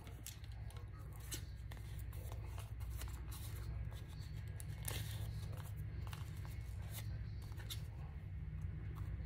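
Scissors snipping through a paper envelope, a series of short irregular cuts with paper rustling between them, over a steady low hum.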